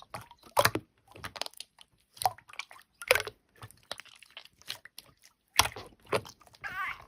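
Slime being pressed and squished by hand, giving irregular wet clicks, pops and crackles. A short squeak comes near the end.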